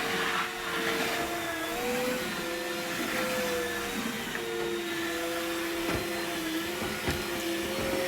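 Dreame wet/dry vacuum mop running steadily as it sucks up a liquid spill, its motor whine wavering slightly in pitch. Two soft knocks come near the end.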